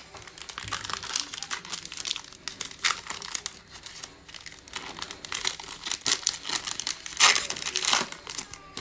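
Foil trading-card pack wrapper being torn open and crinkled by hand as the cards are worked out of it, a dense run of crackling that is loudest about a second before the end.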